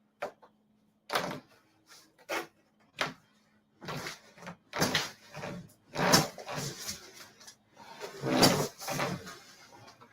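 Closet panels knocking and clattering as a piece is rocked back and forth to bend it and break it loose: a few separate sharp knocks at first, then longer, louder bouts of rattling and banging.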